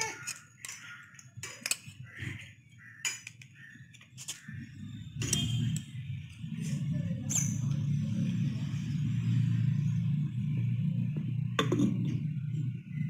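A steel spoon clinking against a glazed ceramic pickle jar while scooping salted mangoes out of their brine, in scattered sharp clinks. From about a third of the way in, a steady low rumble runs underneath and is the loudest sound.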